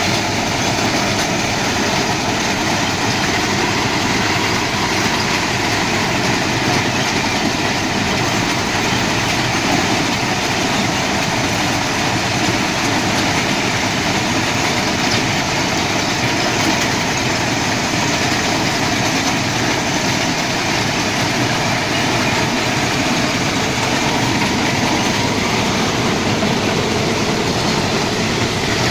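Railway ballast cleaning machine at work: steady heavy machinery noise mixed with stone ballast being dug and poured back onto the track.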